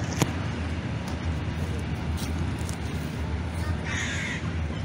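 A crow cawing, one short harsh call about four seconds in, over a steady low rumble.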